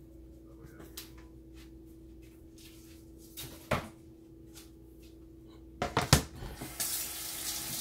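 Quiet kitchen room tone with a steady hum and a few light knocks. About six seconds in, a couple of sharp knocks come as a plastic cutting board is handled, then the kitchen tap is turned on and water runs into the stainless steel sink.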